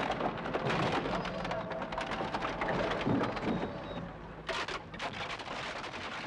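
Refuse lorry's rear compactor crushing a wooden crate and market rubbish: a dense crackling and splintering, with a louder cluster of cracks about four and a half seconds in.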